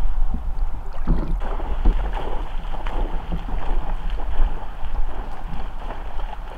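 Water lapping and splashing around a drifting river raft, with a steady low rumble of wind on the microphone.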